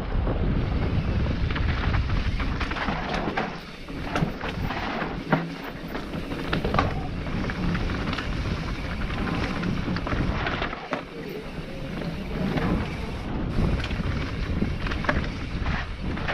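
Propain Spindrift enduro mountain bike descending a dirt trail at speed: wind buffeting the microphone, tyres rolling over dirt and the bike rattling and clattering with frequent sharp knocks over bumps and rocks.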